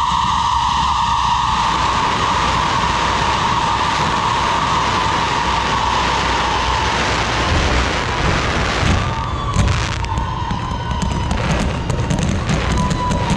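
Fireworks display: a dense hiss of fountains and shells with a low rumble, over a long whistling tone that slowly drops in pitch. From about nine seconds in, rapid crackling pops take over.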